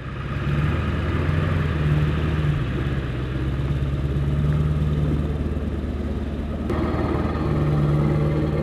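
Ford 4x4 pickup truck's engine running steadily as the truck drives along a rough dirt track. The sound changes abruptly about two-thirds of the way through.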